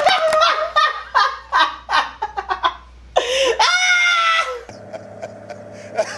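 Men laughing hard in rapid bursts, then one long drawn-out high laugh; a little past halfway the sound cuts to an inserted clip with more laughter near the end.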